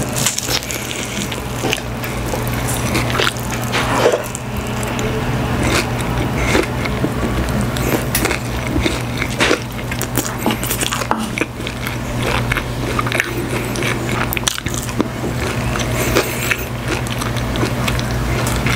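Close-miked biting and chewing of sauced Korean fried chicken, with scattered sharp crunches and wet mouth sounds, over steady background music.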